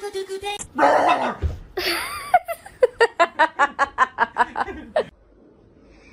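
A person laughing hard in a quick run of ha-ha-ha bursts, about five a second, that breaks off about five seconds in.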